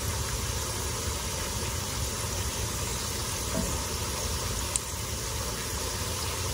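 Chips frying in avocado oil in a skillet, a steady sizzle over a low steady hum. A short click of metal tongs against the pan comes about three-quarters of the way through.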